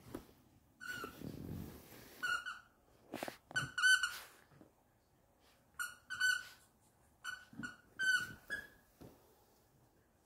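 A squeaky plush elephant toy being chewed by a dog, squeaking in quick pairs and threes, about a dozen squeaks in all. Some rustling and a couple of knocks come in the first few seconds.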